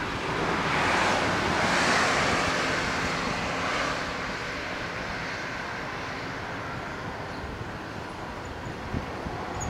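Rushing noise of a passing road vehicle, swelling over the first two seconds and then slowly fading away.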